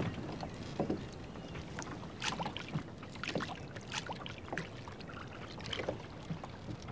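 A small wooden rowboat being pushed off the sand into shallow water: irregular scrapes, knocks and splashes as the hull slides and the men wade, with one man clambering in over the side near the end.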